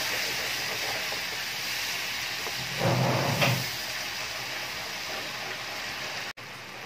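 Onion, ginger-garlic and spice masala sizzling and hissing in a frying pan after a splash of water, the hiss slowly dying down while a wooden spatula stirs it. A brief louder noise about three seconds in, and the sound cuts out for an instant near the end.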